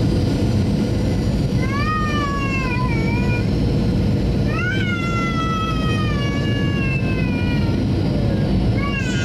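Steady engine and airflow noise inside an airliner cabin during the descent to land, with three high wailing cries over it, each rising quickly and then sliding slowly down in pitch. The longest cry lasts about three seconds.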